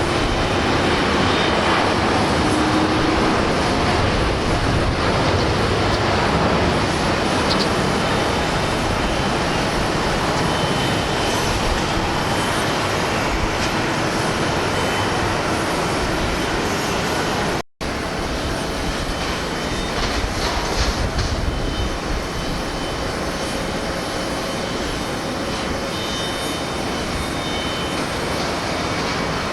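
Large jet airliner engines at takeoff power, a loud steady roar with wind buffeting the microphone. A brief cut to silence a little past halfway, then another jet's takeoff roar.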